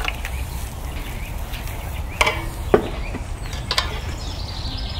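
Three sharp knocks of metal and wood, the second the loudest, as a lid and wooden sticks are set on a frying pan on a sheet-iron camp stove, over a low steady rumble.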